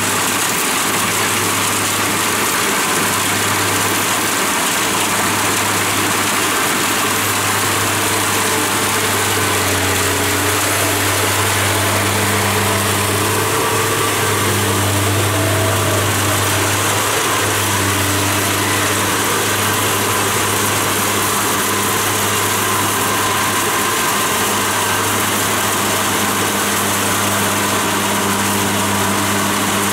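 Kubota DC70 Plus crawler combine harvester running steadily under load as it cuts and threshes lodged rice: a constant engine drone under the even hiss of the threshing machinery.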